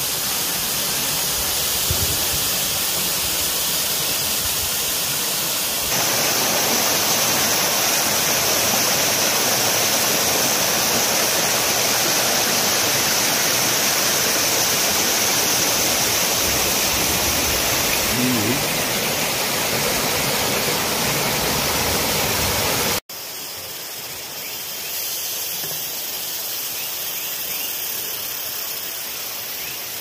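Water of a small rocky waterfall rushing and splashing down over boulders in a steady rush. It gets louder about six seconds in, then drops suddenly to a fainter hiss after about 23 seconds.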